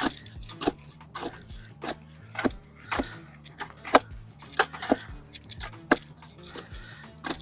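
A digging tool striking into the soil of a fence post hole again and again, about a dozen sharp hits at uneven spacing, roughly one or two a second, over steady background music.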